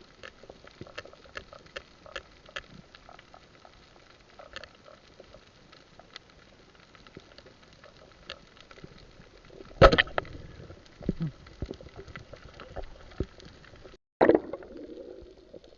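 Scattered clicks and crackling, under water, with a loud knock about ten seconds in and another just after a brief cut-out near the end.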